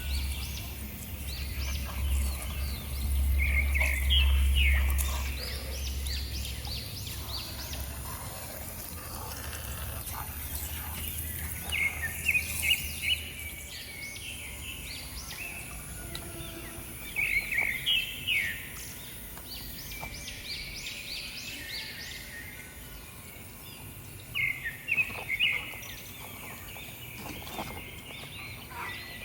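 A songbird singing short, repeated phrases of quick chirps, four times several seconds apart, over a low rumble that dies away after the first few seconds.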